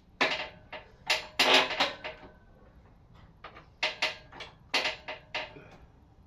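Metallic clanks and clinks from the lifting gear as the hanging engine is raised a little higher: a run of sharp, ringing knocks in irregular clusters of two to four.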